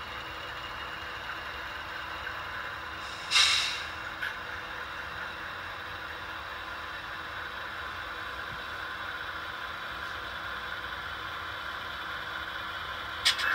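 Model diesel locomotives' onboard sound decoders playing a steady diesel engine sound through small speakers as the units creep slowly along. A short burst of hiss comes about three seconds in, like an air-brake release.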